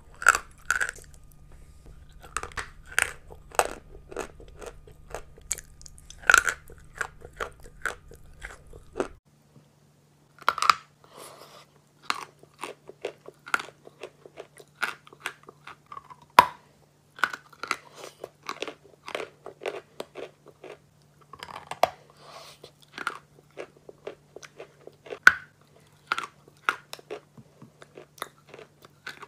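Close-miked biting and crunching of chalk pieces, with sharp crunches every second or so between softer chewing. About nine seconds in there is a second of silence, then more bites and chewing of pieces dipped in a milky liquid.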